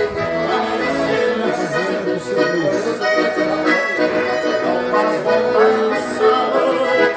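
Accordion music: a traditional tune played with held chords and a moving melody.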